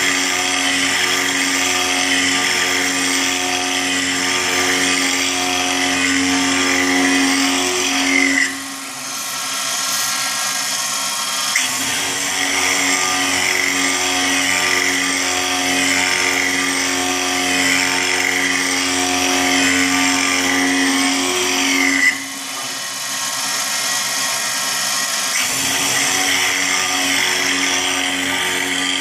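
CNC milling machine's spindle and end mill cutting a circular pocket in a metal plate by circular interpolation: a steady spindle whine over a harsh cutting sound. Twice, about nine and about twenty-two seconds in, the cutting sound drops away for about three seconds, then resumes.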